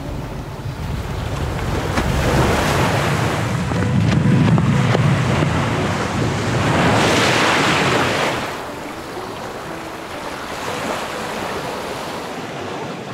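Water rushing and splashing along a sailboat's hull as it moves under spinnaker with no engine running, with wind buffeting the microphone. A louder rush of water and wind comes about seven seconds in, and it settles down after about eight and a half seconds.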